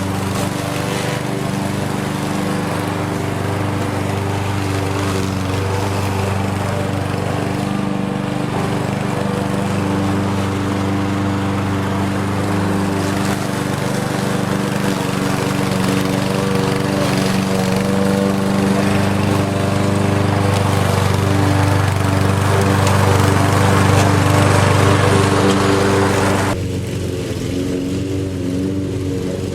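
Lawn mower engine running steadily with a rushing sound over its low hum, slowly growing louder. Near the end the rushing drops away suddenly, and the engine's low hum carries on.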